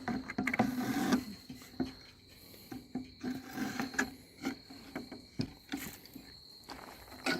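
Scattered knocks, clicks and scrapes as a notched wooden board is worked into place around plumbing pipes, with a steady high insect trill behind.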